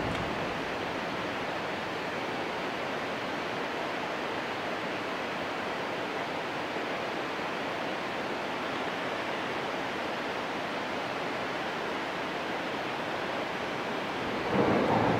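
Steady rushing of water pouring over a dam spillway, an even noise without breaks. It grows briefly louder near the end.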